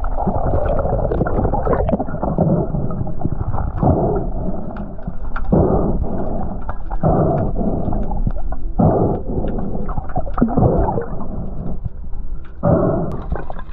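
Muffled underwater sound picked up by a diver's camera: a steady low rumble with gurgling, rushing surges of water every second or so. Near the end the sound turns brighter and less muffled.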